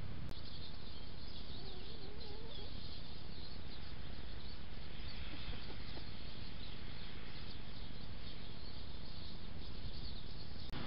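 Steady hiss of a trail camera's microphone, with faint chirps of small birds high up and, about two seconds in, a hen's brief, soft warbling call. A sharp click shortly after the start and another near the end, where camera clips are spliced together.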